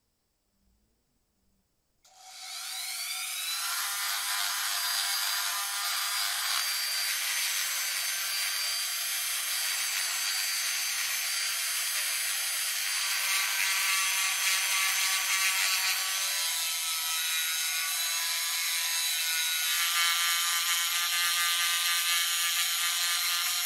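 Handheld rotary tool spinning up about two seconds in, its whine rising in pitch, then running at high speed with a steady whine while its abrasive sanding drum grinds the metal of a lighter's base.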